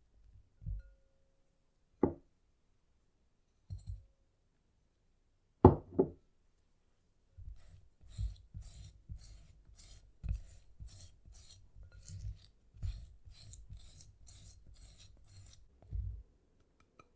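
Kitchen utensils at work on a bowl: a few separate knocks, the loudest about halfway through the first six seconds. Then an even run of about two scraping strokes a second, each with a dull thud and a scratchy hiss, stopping shortly before the end.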